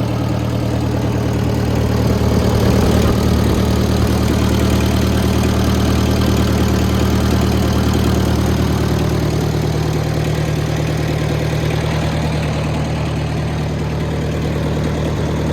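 1960 Ford 600 farm tractor's four-cylinder gasoline engine idling steadily, getting a little louder and changing its note slightly a couple of seconds in.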